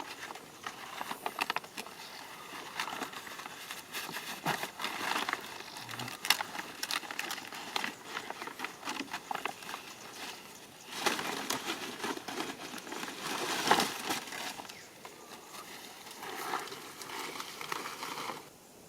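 Leaves and twigs rustling and crackling as they are handled, in irregular bursts of crisp clicks, loudest in a stretch about halfway through and stopping abruptly near the end.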